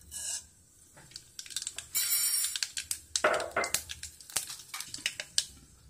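Mustard seeds spluttering in hot oil: a light sizzle with sharp, irregular pops and crackles that grow busier after about a second and a half as the seeds start to burst.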